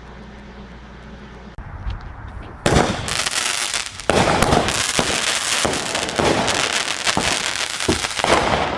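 Fireworks going off in a rapid, loud barrage of sharp bangs and crackling that starts about three seconds in, after a low steady hum.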